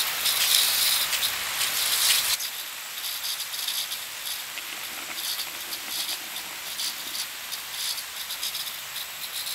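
Overhead hanging micro-sprinklers spraying water: a steady hiss with an uneven patter of droplets on the plastic tunnel sheeting and the leaves, with a little air still working through the supply line. The sound drops suddenly to a softer level about two seconds in.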